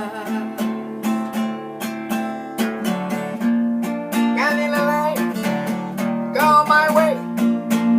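Acoustic guitar strummed in a steady rhythm as song accompaniment, with a singing voice holding wavering notes about halfway through and again near the end.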